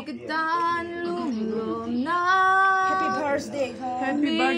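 Voices singing without accompaniment, with long held notes.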